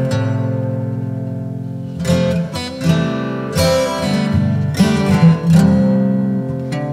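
Background music: acoustic guitar strumming chords, the notes left ringing between strums.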